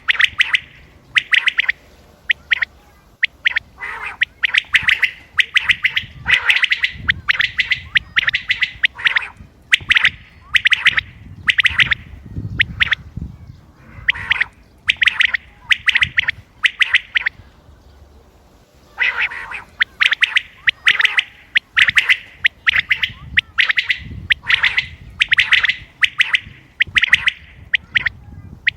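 Common quail calling over and over: quick phrases of short, sharp, high notes repeated with brief gaps between them, with one longer pause a little past the middle.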